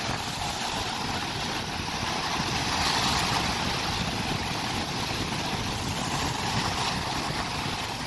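Rough sea waves washing and breaking in foam against rocks at the shoreline, a steady rushing noise, with wind buffeting the microphone as a low rumble.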